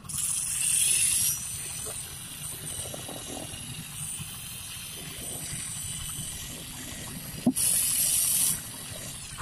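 Handheld electric concrete poker vibrator with a flexible shaft switching on with a rising whine, then running with a high whine and hiss. It gets louder twice, for about the first second and again for about a second near the end, as the needle compacts freshly poured concrete in a ground beam.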